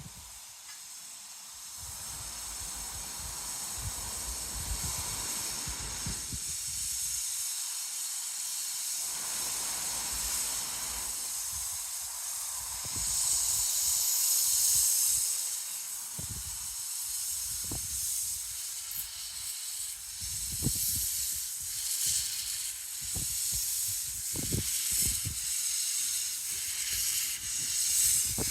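Steam locomotive hissing as it lets off steam, steady throughout and swelling louder about halfway through, with irregular low rumbles underneath.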